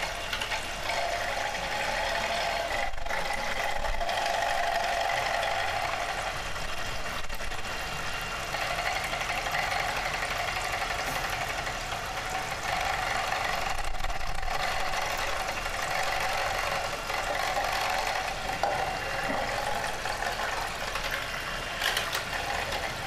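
Handheld electric mixer running at a steady speed, its twin beaters whisking thin crêpe batter in a glass bowl.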